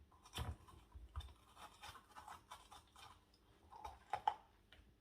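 Small knife cutting into and scraping a raw pepper on a chopping board: soft irregular clicks, taps and crunches, with a couple of sharper knocks of the blade on the board a little after four seconds in.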